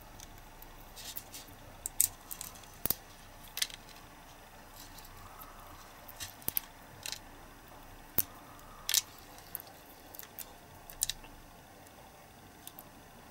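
Irregular small clicks and crackles of fingers working a two-part silicone mould and breaking away thin flash from the cured resin casting, a few sharper snaps among them.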